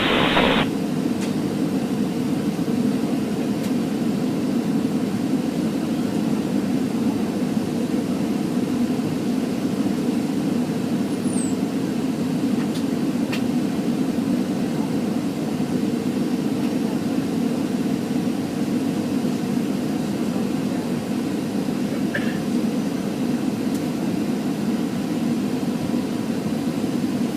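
Steady cabin noise inside a Boeing 737 on approach: an even, deep rumble of the engines and airflow, with a faint steady hum.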